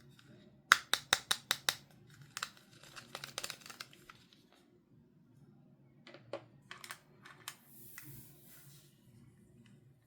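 Plastic toy packaging being handled and opened: quick runs of sharp plastic clicks and taps, with a short crinkle near the end.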